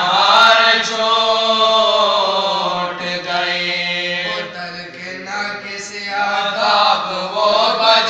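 Group of male voices chanting a noha, a Shia lament, in unison without instruments, in long drawn-out notes that bend slowly in pitch. The chant grows quieter around the middle and swells again near the end.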